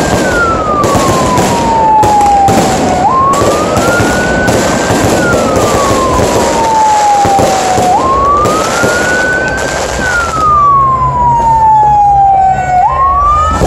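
An emergency vehicle siren wails, rising and then slowly falling in pitch about every five seconds. Under it runs the dense crackle and popping of fireworks, which thins out about ten seconds in.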